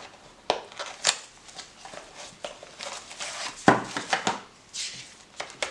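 A knife's cardboard box and paper packing being handled and taken out: rustling with scattered clicks and taps, and a sharper knock a little past halfway.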